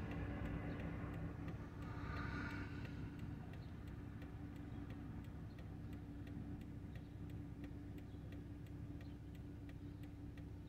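A car's turn-signal indicator ticking steadily, a few clicks a second, inside the cabin of a stopped car with its engine idling as a low, steady hum.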